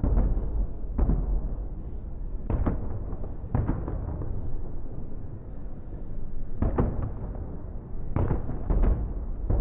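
Fireworks display: aerial shells bursting in about a dozen sharp bangs at uneven intervals, some in quick pairs, over a continuous low rumble.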